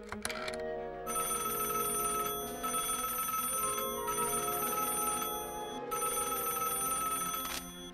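Old telephone bell ringing in long peals with brief breaks, after the number is dialled on a rotary phone.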